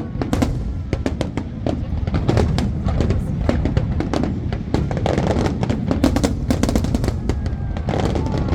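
Fireworks going off in rapid succession: dense sharp bangs and crackles, several a second, over a continuous low rumble.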